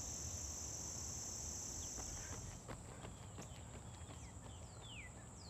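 Steady high-pitched buzz of insects such as crickets, thinning about halfway through, with a few short descending bird whistles near the end.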